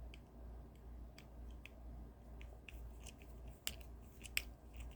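Small screws being driven into a model kit truck's chassis: faint, scattered clicks and ticks from the screwdriver and parts, with a couple of sharper clicks about four seconds in.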